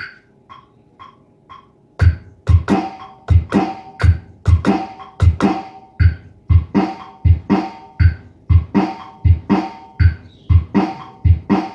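Boss Dr. Rhythm DR-670 drum machine: about two seconds of faint metronome count-in clicks, about two a second, then a loud repeating beat of kick drum, snare and cymbal sounds.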